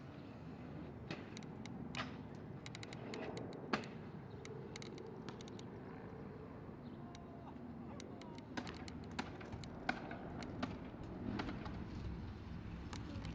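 Steady outdoor background noise with scattered short, sharp clicks and taps, the loudest a little under four seconds in.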